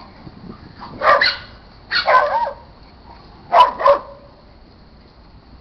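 A dog barking several times in three bursts, about one, two and three and a half seconds in, the last a quick double bark.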